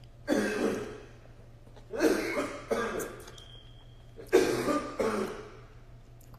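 A man coughing several times in short, sudden bursts.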